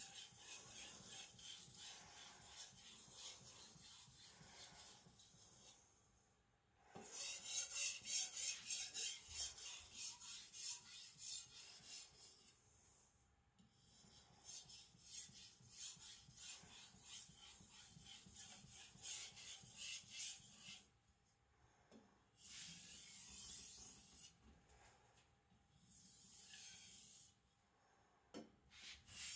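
Aogami carbon-steel gyuto edge stroked back and forth on a wet Naniwa Professional 5000-grit whetstone with very light pressure, in the final polishing stage. It makes a soft, rhythmic scraping hiss in several runs with short pauses between them.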